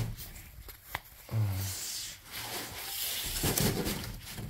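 Large cardboard box being handled and slid along, its cardboard rubbing and scraping, with a single click about a second in and a brief low hum of a voice just after.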